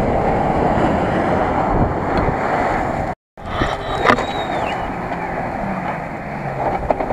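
Off-road 4x4 engines working under load as they drive through mud and up a dirt track, mixed with heavy wind noise on the microphone. The sound drops out completely for a moment about three seconds in.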